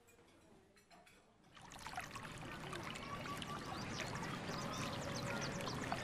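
Outdoor ambience fading in about a second and a half in: a steady rush like running water, with many small birds chirping over it.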